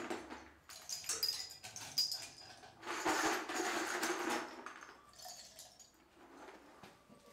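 Aluminium scraps clinking and rattling as they are shaken out of a bucket into a glass jar of sodium hydroxide solution, with a longer rattle of sliding metal pieces about three seconds in and fainter clinks after it.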